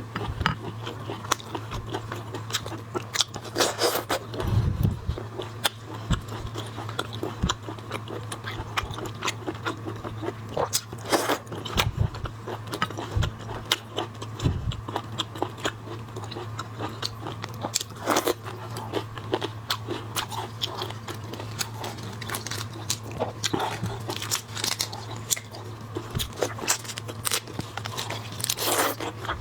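Close-miked eating of shrimp and crab: chewing and biting with frequent sharp crunches and crackles, over a steady low hum.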